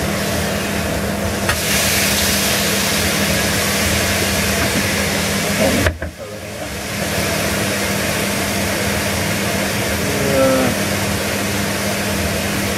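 Steak sizzling in a hot griddle pan, a steady frying hiss over a constant low hum. The sound briefly dips about six seconds in, then returns.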